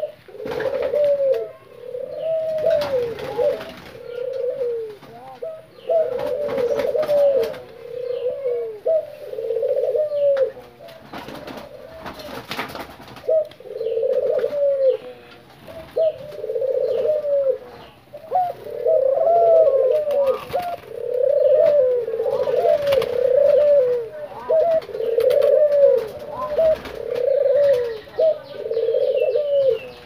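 Several caged ringneck doves cooing over and over, their rolling coos overlapping with only short gaps between phrases.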